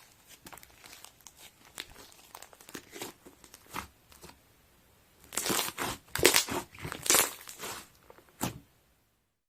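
Crinkling and rustling handling noise: a run of short crackles, growing louder about halfway through, then stopping abruptly.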